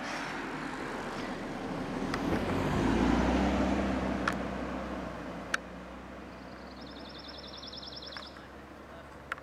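A car driving past: engine and tyre noise on the road surface swell to a peak about three seconds in, then fade as it moves away.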